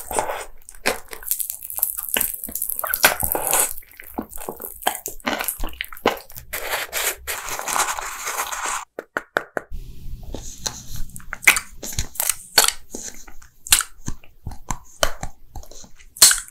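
Close-miked eating sounds: dense crunching and crackling of a crumbly snack being chewed for the first half. After a break about nine seconds in, sparser sharp clicks take over over a low hum, with a drink bottle held to the lips.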